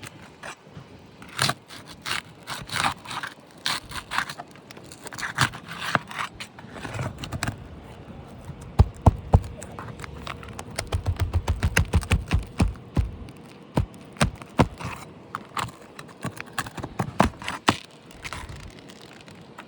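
Brittle asphalt roof shingles being pried up and their sealant strips broken: scraping and crackling throughout, with a few sharp knocks about nine seconds in and a quick run of taps just after.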